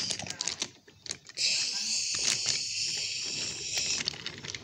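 Wooden toy train cars pushed by hand along wooden track: a run of clicks in the first second or so, then a steady hiss for most of the rest.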